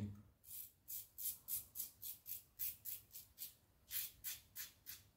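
Laugar skogsrå double-edge safety razor scraping through beard stubble in short, faint strokes, about three a second, with a brief pause a little past halfway.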